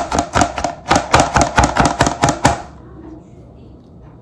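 Chef's knife rapidly mincing blanched green beans on a cutting board, a fast even run of chops at about five or six a second that stops a little past halfway.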